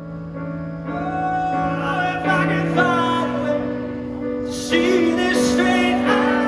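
Live pop-rock song: a singer holds drawn-out, wordless notes over sustained accompaniment chords, which change about three seconds in.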